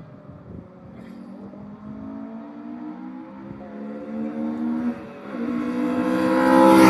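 A sports car's engine accelerating hard as it approaches, the pitch rising, with an upshift about five seconds in, then rising again. It grows steadily louder until the car passes close by at the end.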